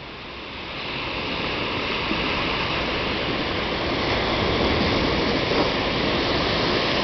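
Steady rushing noise of wind and surf on the beach, growing louder over the first couple of seconds and then holding even.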